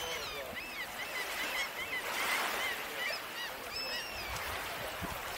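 A flock of birds calling over and over in short, quick, arched calls, over the steady wash of small waves on the shore.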